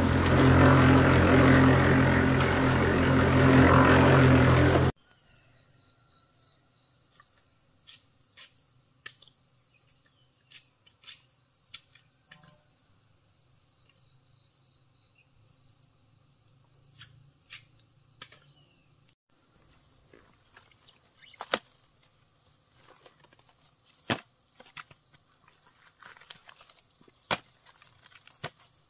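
A motor engine running steadily and loudly, cut off abruptly about five seconds in. Then insects chirping, a steady high hiss with a regular chirp just under twice a second. Scattered sharp clicks and knocks come through it, a few louder ones in the last third.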